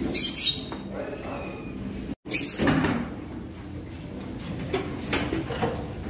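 Parrots squawking in an aviary: two loud, harsh calls, one near the start and one about two and a half seconds in, then softer calls, over steady bird chatter.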